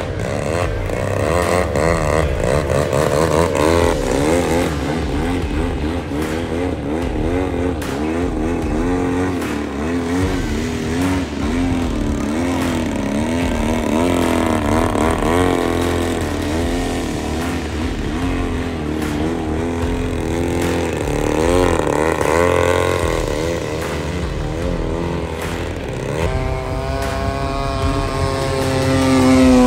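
Piston-engined RC model airplane in flight. Its engine note rises and falls as it manoeuvres, and drops sharply in pitch near the end as it passes close by.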